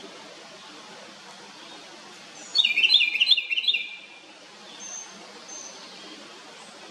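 House wren singing one loud song phrase, a rapid run of short notes lasting just over a second, about two and a half seconds in. Two faint, short high chirps follow.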